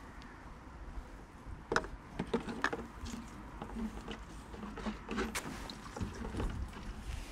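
Irregular taps, knocks and clunks of plastic fuel containers and a clear siphon hose being handled, as the hose is moved from one petrol can to another. The knocks begin about two seconds in.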